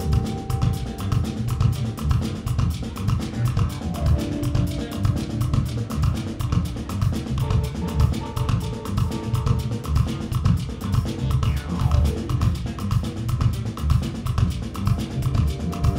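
Live band playing a steady groove: drum kit, bass and electric guitar with a regular beat, and held keyboard or horn notes over the top.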